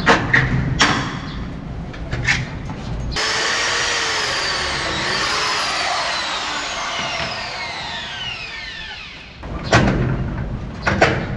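A corded electric drill runs for about six seconds, starting about three seconds in, while fitting an aluminum screen door frame. Its motor whine falls in pitch as it runs. Knocks and clicks of handling come before and after the run.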